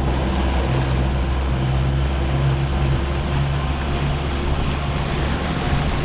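Tour boat's engine running steadily under way, a constant low hum with wind and water rushing past.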